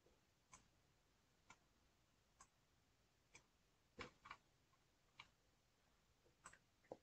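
Faint single clicks from a computer mouse, about one a second at first, then a few irregular pairs, with near silence between them.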